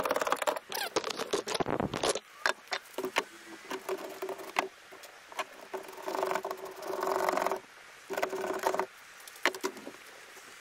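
Ratchet wrench clicking in quick runs as the bolts of a metal roof-rack bracket are tightened down, with further scattered metallic clicks and scrapes.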